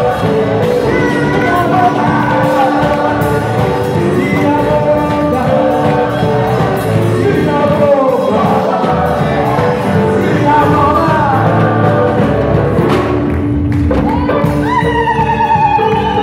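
Live gospel praise singing: a group of voices singing together into microphones over a band of drums, electric guitars and keyboard. Near the end a single voice rises above the rest.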